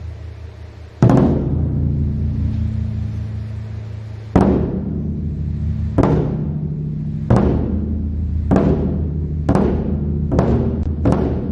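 Daebuk, a large Korean barrel drum, struck with single heavy beats that come closer and closer together, from over three seconds apart to about half a second apart, each beat ringing on over a low sustained hum.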